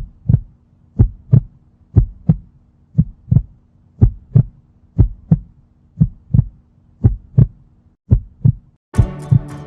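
A heartbeat, each beat a double lub-dub thump, about one beat a second over a faint steady hum. Music comes in near the end while the heartbeat carries on.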